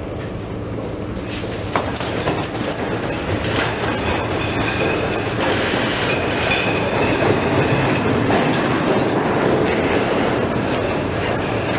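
Subway train running through the station: a steady rumble with wheel clatter and a brief high wheel squeal in the middle.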